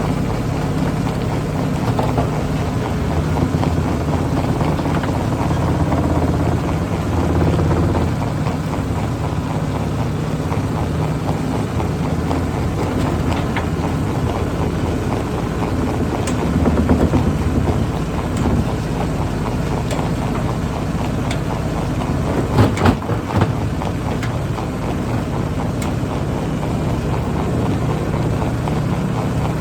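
Heavy diesel engine of an excavator running steadily, with a brief louder patch about midway and a few sharp knocks near the end.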